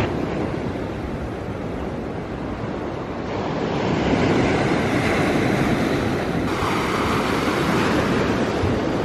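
Sea waves washing onto a beach, with wind on the microphone; the surf swells louder about four seconds in.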